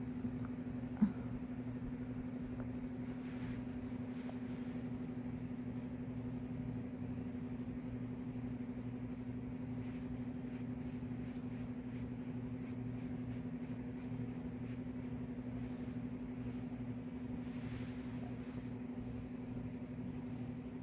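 Steady machine hum with a low, even pitch that does not change, and a single short click about a second in.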